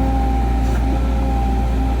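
Excavator engine running steadily, a loud, even low drone with a few steady higher tones above it.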